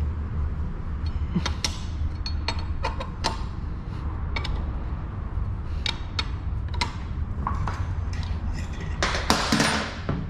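Metal hand tools clicking and clinking as the engine's cover bolts are tightened, in irregular sharp clicks over a steady low hum, with a longer scraping noise near the end.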